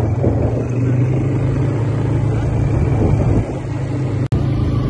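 Quad bike (ATV) engine running steadily while riding on sand, a low even hum under rushing noise. The sound cuts out for an instant about four seconds in.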